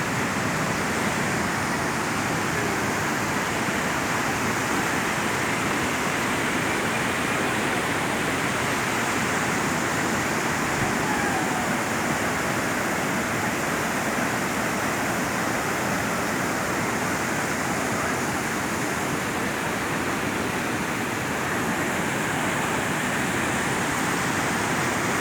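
Steady rush of river water pouring over rocks at a waterfall, an even noise that holds level throughout.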